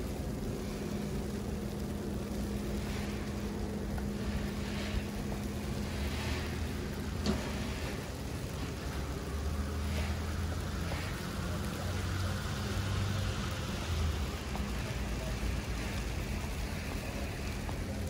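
City street traffic: motor vehicles running and passing, with a steady low engine hum and a slow swell as a vehicle goes by in the middle. One sharp click about seven seconds in.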